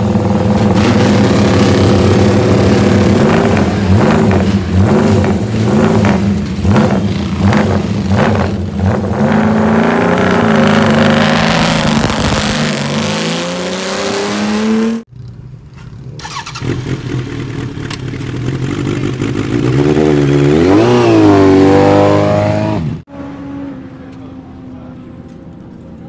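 Air-cooled inline-four racing motorcycle engine with an open four-into-one megaphone exhaust, running and blipped repeatedly, then revved up. After a cut, another racing motorcycle revs up and pulls away, followed by a quieter steady hum near the end.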